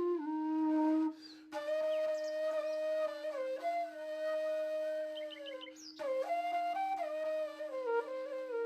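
Background music: a flute melody of held, gliding notes over a steady drone.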